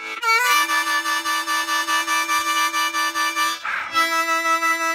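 Harmonica playing a long draw note that slides up into pitch and is held for about three and a half seconds. It is cut by a quick audible gasp of breath, then a blow note at a different pitch. The gasp between the inhale and exhale phrases is the breathing fault being shown.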